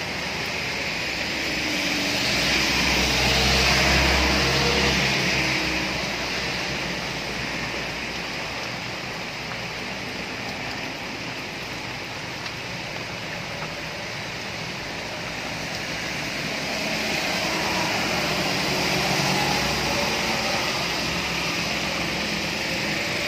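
Steady rain with tyres hissing on a wet road, and traffic passing: the sound swells with a low engine rumble about two to six seconds in and again near the end.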